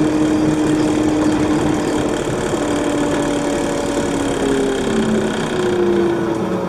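Inside a moving city bus: steady engine and road noise with a droning hum that falls in pitch over the last couple of seconds as the bus slows.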